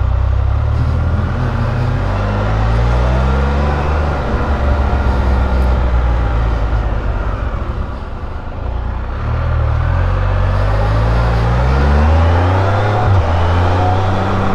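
Can-Am Spyder RT Limited's three-cylinder engine under way, its pitch climbing as it accelerates, dropping back as it eases off about eight seconds in, then climbing again. A steady rush of wind and road noise runs underneath.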